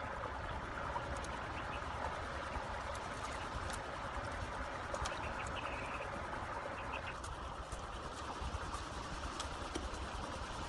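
Steady rush of a shallow stream, with scattered light clicks and rustling from bamboo strips and wire being worked by hand on a bamboo fish trap.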